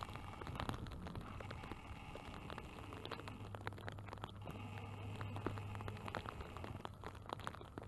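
Rain falling, its drops pattering irregularly on a hard surface as many sharp ticks over a soft hiss, with a steady low hum underneath.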